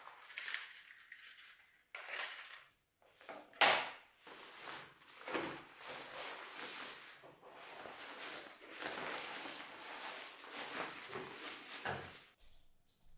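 Rustling of a black nylon photographic changing bag as hands work inside it, with irregular handling knocks, a sharp clack about three and a half seconds in and another near the end.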